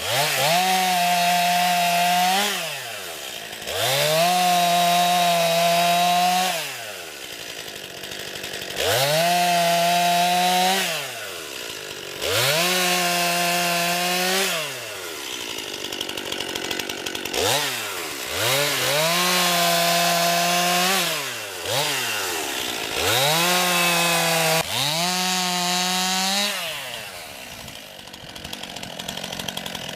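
A brand-new 50 cc two-stroke chainsaw revving up to a high, steady pitch and cutting wood. It drops back toward idle between cuts, about seven times.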